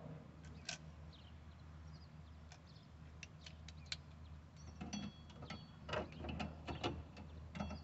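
Irregular light metallic clicks and taps from hand tools working on metal car parts, getting busier from about five seconds in, with several taps leaving a short ringing tone.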